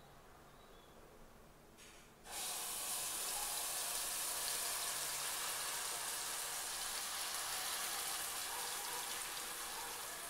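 Coconut rotti batter hitting hot oil in an aluminium pressure cooker and sizzling: a sudden start about two seconds in, then a steady frying hiss that eases slightly near the end.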